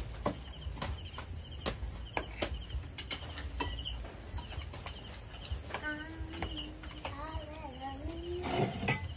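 Spoons and forks clicking and scraping against plates and bowls in irregular, sharp clinks, over a steady background of crickets chirping.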